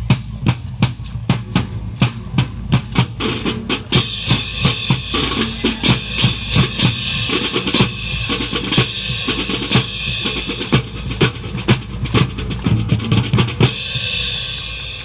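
Music with a steady drum beat of bass and snare drum, with sustained higher sounds joining about four seconds in.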